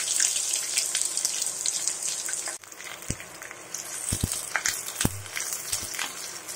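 Sliced onions sizzling in hot mustard oil and ghee, the frying hiss loudest at first and dying down. A few light knocks as a spatula stirs them in the pan.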